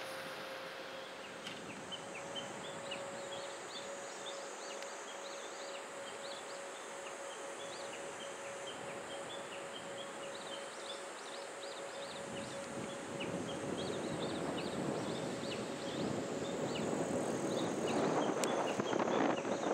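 Outdoor field ambience: insects buzzing and many small repeated chirps, over a steady mid-pitched hum. About twelve seconds in, a louder rushing noise builds up and keeps growing.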